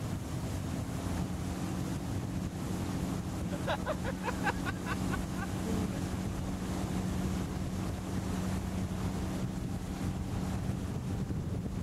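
Motorboat engine running steadily under load while towing a water-skier, with wind buffeting the microphone and water rushing past the hull.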